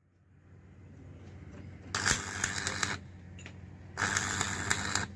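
Stick (arc) welding on steel: two bursts of crackling, sizzling arc, each about a second long, the first about two seconds in and the second about four seconds in, over a low steady hum.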